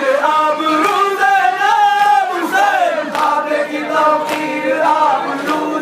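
Men chanting a Muharram noha, a mourning lament for Husayn, in a crowd, with sharp slaps now and then from hands beating on chests (matam).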